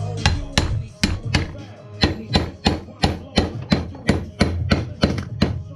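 Rapid, evenly spaced sharp knocks, about three a second, over background music.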